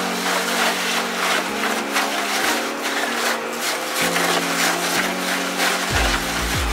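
Fornnax SR-150 dual-shaft tyre shredder cutting a whole tyre into strips: a steady grinding, tearing noise from the rotating cutter discs chewing the rubber, with a low hum underneath that steps in pitch every second or so. A heavier low rumble comes in near the end.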